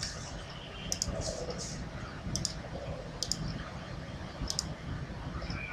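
Sharp clicks, about five over a few seconds, several coming in quick pairs, over a low steady room rumble.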